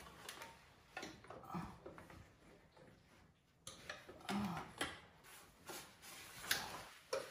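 Scattered light clicks and knocks of a curtain and its hardware being handled and hung on the rod, a few sharper taps about four to five seconds in.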